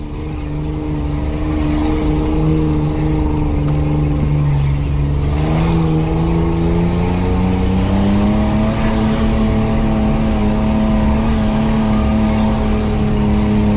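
Off-road 4x4's engine running under load as it drives along a dirt forest track, its pitch climbing somewhat about halfway through and then holding steady.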